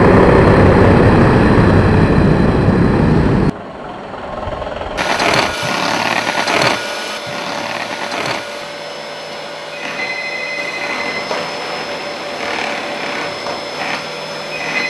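Loud rushing outdoor noise for the first few seconds, then cuts off. After that an electric hand mixer motor runs with a steady whine. About ten seconds in, a telephone rings briefly.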